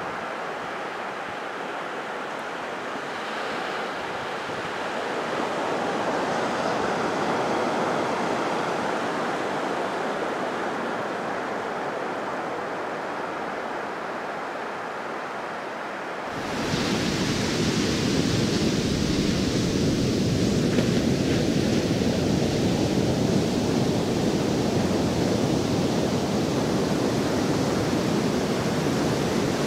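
Ocean surf, a steady rush that swells and eases. A little over halfway through it switches abruptly to a louder, fuller rush.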